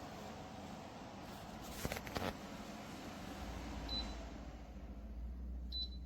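Ezify tower fan running with a steady hiss of airflow and a low hum. A few clicks come about two seconds in, and two short, high electronic beeps follow, one near the middle and one near the end, like the fan acknowledging a button or remote-control command.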